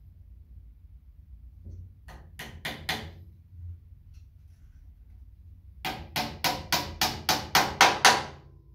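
Small hammer tapping on pine pieces of a small glued box: four taps, then a run of about ten quicker taps, about four a second, growing louder.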